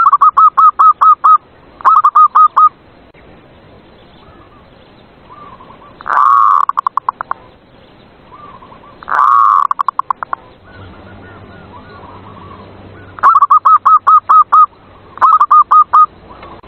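Zebra doves (perkutut) cooing: six loud phrases, each a quick run of repeated staccato notes, with fainter coos in the gaps between them.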